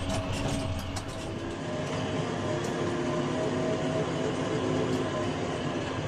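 JCB 3DX backhoe loader's diesel engine running as the machine drives over rough field ground, heard from inside the cab with a few light rattles. Its note rises slightly after about a second and a half.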